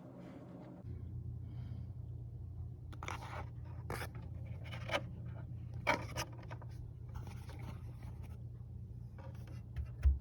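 Scattered light scrapes and clicks from hands working on old radio parts, over a steady low hum that comes on about a second in.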